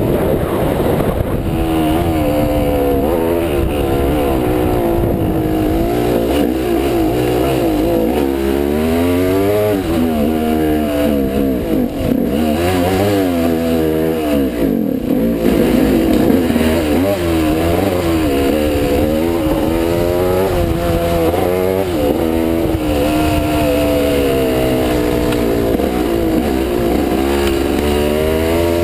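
Off-road motorcycle engine ridden hard over rough ground, close to the rider, its pitch rising and falling over and over as the throttle opens and shuts and the gears change, with brief dips around the middle.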